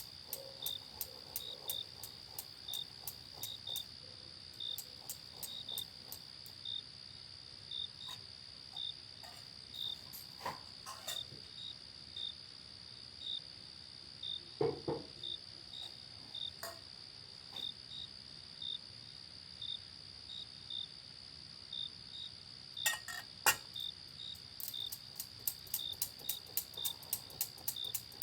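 Crickets chirping: a steady high trill with short chirps repeating about once or twice a second, and a few soft knocks and one sharper click near the end.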